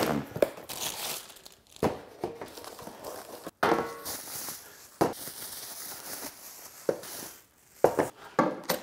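Plastic wrapping crinkling and being pulled off grill stand parts, with cardboard rustling and several short knocks as parts are handled and set down.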